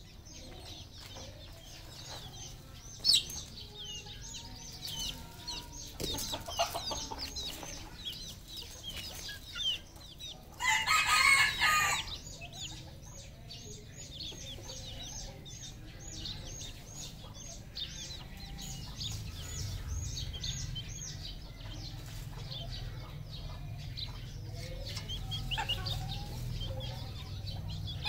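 Red junglefowl crowing: one short, shrill crow about ten seconds in. Under it runs a steady series of high, quick chirps, about three a second.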